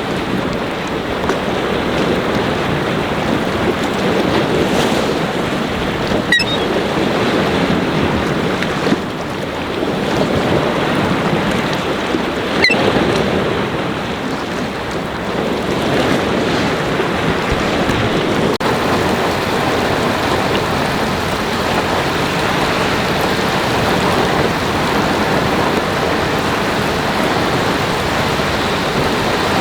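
Big waves churning and breaking on a lake in high wind, with wind buffeting the microphone: a steady, dense rush of water and wind.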